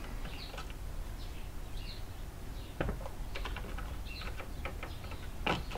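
Clear plastic clamshell packaging being handled and opened, with scattered light crackles and clicks as the new rubber grips are taken out of it.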